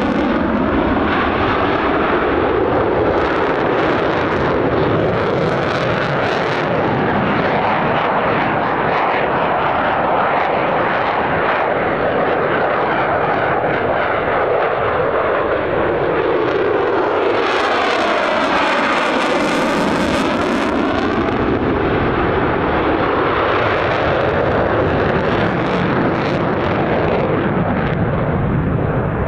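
Mitsubishi F-2 fighter jets' single F110 turbofan engines, a loud continuous jet noise as the aircraft fly display maneuvers. About two-thirds of the way through, one passes close by and the sound sweeps up and then down in pitch, with a whooshing sweep.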